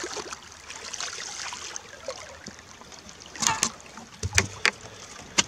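Steady lapping water and wind around a small fishing boat. In the last two seconds come a few sharp clicks and several dull thumps as a small walleye is swung aboard onto the deck.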